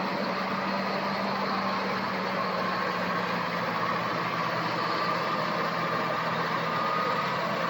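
Farm harvest machinery running steadily: an engine's drone with a steady high whine on top.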